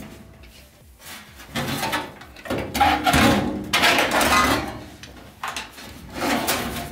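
Sheet-metal furnace blower housing scraping and bumping against the cabinet as it is slid back into the furnace. It comes as several rough scrapes of about a second each, with a few knocks.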